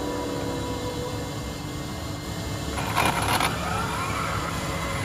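Arrma Felony 8S RC car with a TP 4050 3200Kv brushless motor: a short harsh burst about three seconds in, then the motor's whine climbing in pitch and levelling off as the car is throttled, over a steady low rumble.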